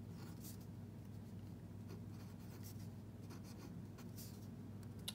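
Pen writing letters on a sheet of paper: a run of short, faint scratching strokes.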